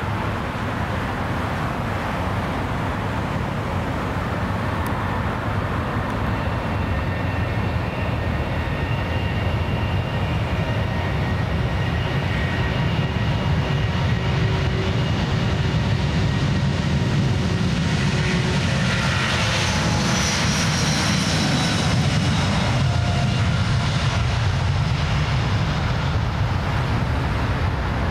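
Airbus A350's Rolls-Royce Trent XWB turbofans at takeoff thrust during the takeoff roll. A steady jet roar grows louder with a high fan whine, peaks about two-thirds of the way through as the plane passes, then the whine drops in pitch as it moves away.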